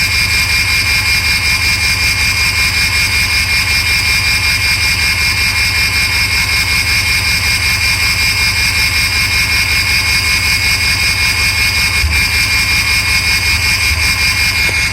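Ford 6.0 L Power Stroke V8 turbodiesel idling, with a steady high whine over the low running and a regular pulsing beat of about four a second. The engine has a misfire on cylinder 5, traced to a faulty #5 injector that shows low voltage and low cylinder contribution.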